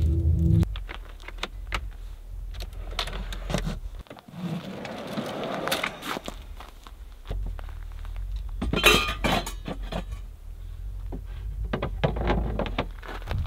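Camp kitchen gear being handled and packed away at the open back of an SUV: scattered clicks, knocks and light clatter of items set down and moved about in the slide-out drawers, with a louder clatter about nine seconds in.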